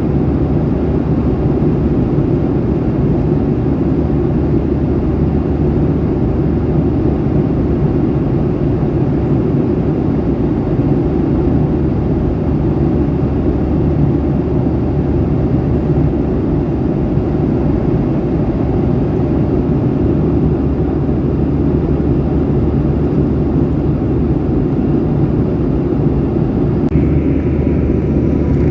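Steady jet airliner cabin noise: a low rumble of the engines and airflow heard from inside a Boeing 737-800. Near the end a higher hiss comes in and the rumble shifts.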